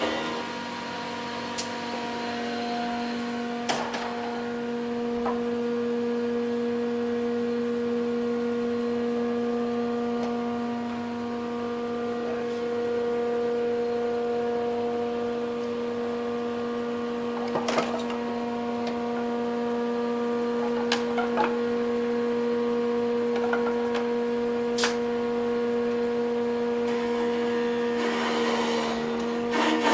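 An electric power tool's motor running steadily with a constant hum, with a few sharp knocks or clicks from the work now and then.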